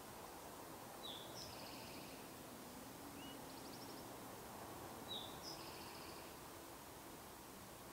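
A small songbird sings the same short phrase twice: a sharp note, then a higher one, then a buzzy trill. A lone chirp and a short trill come between the two phrases. Under the song is a faint steady background hiss.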